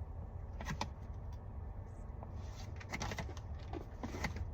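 Eating trail mix from a bag: a few short crunches and crinkles, about a second in, around three seconds and near the end, over a low steady rumble.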